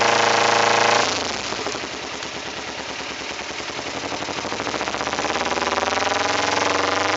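A Kawasaki Ninja 250R's parallel-twin engine, fitted with an aftermarket Danmoto exhaust, idling fast. About a second in its speed drops as the choke is worked, then climbs back up steadily by itself. The high, self-rising idle is a fault the owner puts down to carburettor jetting that needs a rejet.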